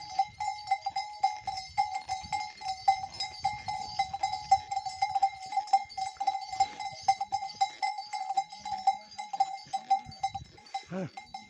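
A bell on a walking riding pony's harness ringing continuously, its clang rippling and jangling with every jolt of the stride.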